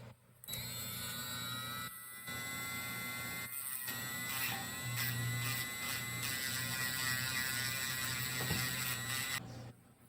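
A small high-speed electric motor whining steadily. It is briefly cut off twice near the start, and its pitch sags about four seconds in, as if put under load, then holds steady until it stops near the end.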